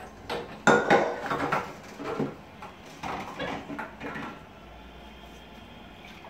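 Pots and dishes clattering and knocking against each other and a stainless steel sink as a monkey handles them in soapy water. A run of irregular knocks fills the first four seconds, loudest about a second in, then it goes quieter.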